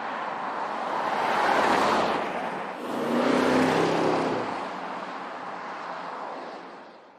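A 2019 Porsche Cayenne Turbo driving past. Tyre and road noise swells as it approaches, then the exhaust note of its twin-turbo V8 comes through as it goes by and drives off, fading away near the end.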